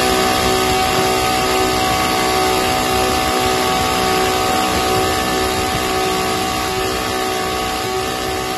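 Small petrol brush cutter engine running steadily at high speed under load on a dynamometer test bench. It holds a constant pitch with a dense, continuous noise.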